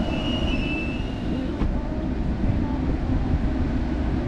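Motor vehicle running with a steady low rumble, and a brief high squeak in the first second and a half.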